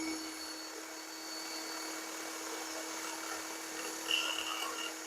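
Impact driver spinning a copper pipe-cleaning brush on the end of a copper pipe: a steady motor whine over the brush's scratchy hiss, with a brief louder scrape about four seconds in.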